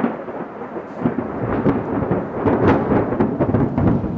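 Thunder sound effect: a long rolling rumble with repeated sharp crackling peaks, over a hiss like rain.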